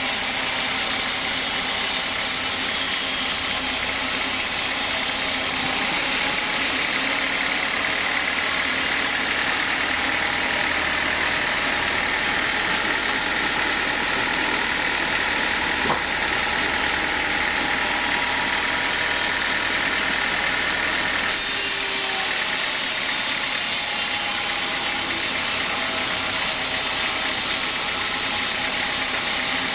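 Sawmill machinery running steadily with a continuous mechanical drone, fuller in the middle stretch from about six to twenty-one seconds in.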